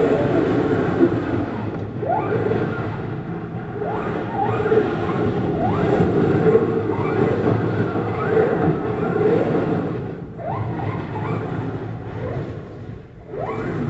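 RC monster truck's motor whining up in repeated short throttle bursts, each a rising whine, as its tyres spin and scrabble on an icy driveway.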